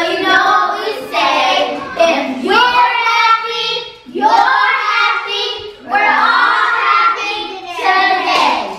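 A group of young children singing together in unison, in short phrases with brief breaks.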